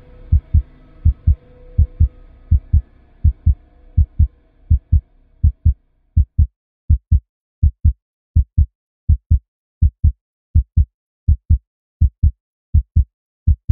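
Heartbeat sound effect: a slow, steady lub-dub of paired low thumps, about 80 beats a minute, over a faint low drone that fades out about halfway through.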